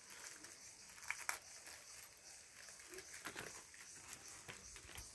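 Faint handling noise: scattered light clicks and taps over a low hiss.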